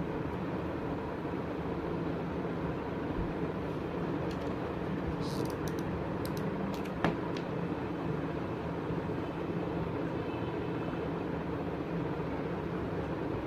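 Steady droning background hum, with a few faint ticks and one sharp click about seven seconds in.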